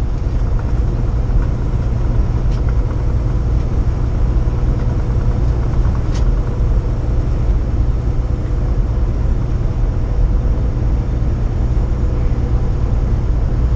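Steady low drone of a 2015 Kenworth T680 semi truck cruising at highway speed, heard from inside the cab: engine and road noise, with a faint steady hum above it.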